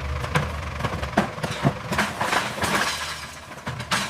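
Construction and debris clatter: a string of sharp knocks and clinks with scraping between them, over a low rumble that fades about three seconds in.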